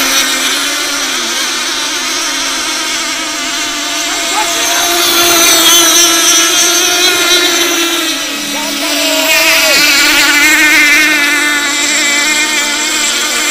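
Several small outboard boat motors running together in a race, a high whine whose pitch wavers up and down as the boats speed up and turn. It grows louder about five seconds in, dips briefly past the middle, then swells again.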